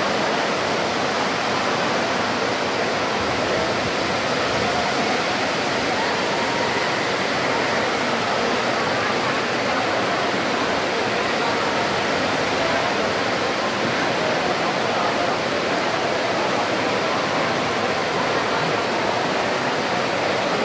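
Steady rushing background din of a large sports hall, with indistinct voices mixed in.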